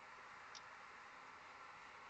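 Near silence: faint room hiss, with one faint tick about halfway through.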